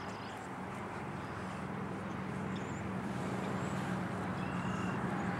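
Steady low engine drone, swelling a little after the first second or so, over outdoor background noise.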